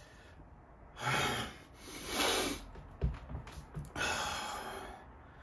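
A man breathing in distress: three long, breathy breaths, with a short click between the second and the third.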